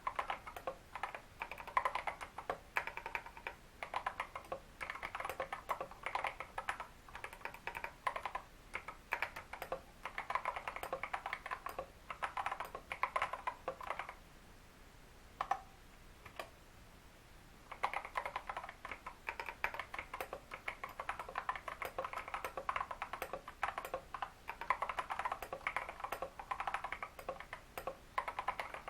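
Typing on a Royal Kludge RK100 mechanical keyboard with lubed Feker Holy Panda tactile switches and XDA keycaps: rapid runs of keystroke clacks. A pause of about four seconds about halfway through, broken by a single keystroke.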